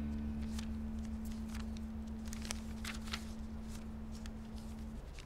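Soft scattered rustles and light clicks of paper being handled, over a low steady hum. A single held low tone stops about five seconds in.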